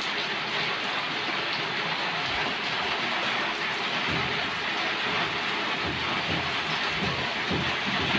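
Heavy rain falling steadily in strong wind, a dense even hiss. Low rumbles and thumps come in now and then from about four seconds in.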